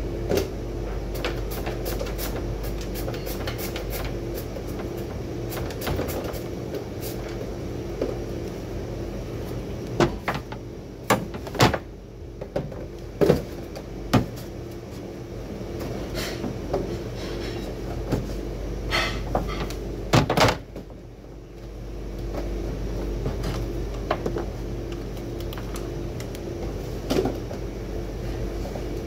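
Kitchen prep clatter: scattered knocks, clicks and scrapes as carrots are worked over a perforated metal plate on a plastic bin. They sit over a steady appliance hum that drops out briefly twice.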